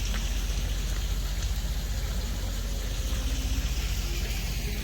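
Steady rain falling, over a low, even rumble.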